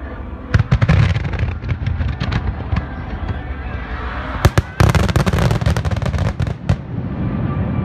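Fireworks going off in quick succession: a rapid string of sharp bangs and crackles starts about half a second in. The loudest cluster of bangs comes about four and a half seconds in, followed by another dense run of about two seconds.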